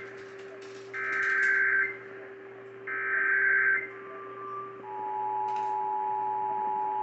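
Emergency Alert System tones on AM radio: two roughly one-second bursts of the warbling SAME digital header, then from about five seconds in the steady two-tone attention signal. Together they announce a tornado warning. A steady low whistle and hum from the radio reception run underneath.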